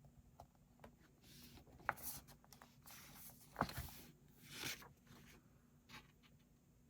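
Faint paper rustling with a few soft clicks and taps as a book page is turned and the book is handled, several short rustles over about five seconds with the sharpest click about halfway.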